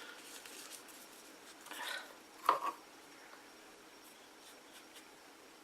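Small handling sounds of paper mache work at a table: a brief rustle of paper just before two seconds in, then one sharp tap of something set down, with a few faint clicks.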